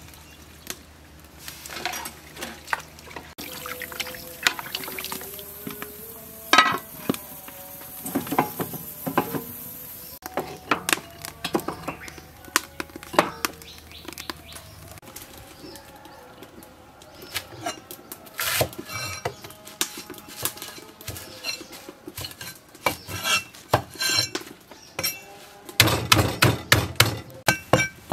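Cooking sounds: a ladle and utensils clinking against a metal pot and liquid pouring in for several seconds, then a quick run of knife chops through water spinach stems on a wooden board near the end.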